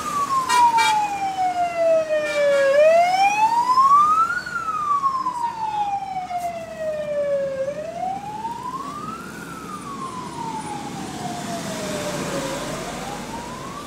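Police car siren in a slow wail, rising quickly and falling slowly in pitch, about one cycle every five seconds, over the noise of passing traffic.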